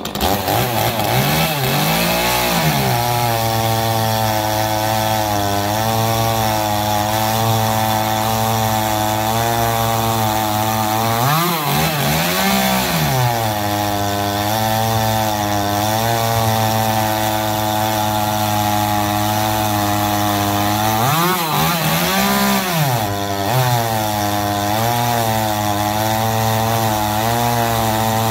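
Echo CS-310 two-stroke chainsaw running at high revs while cutting wood, its engine pitch dipping and climbing back up three times.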